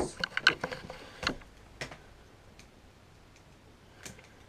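Clicks and light knocks from small objects being handled on a desk close to the microphone. There is a quick irregular run of them in the first two seconds, then two faint ticks.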